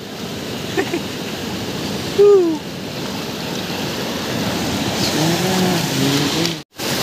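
Steady wash of sea surf and water running over shell-covered rocks. About two seconds in there is a short falling vocal exclamation, and faint voices come near the end before a brief dropout.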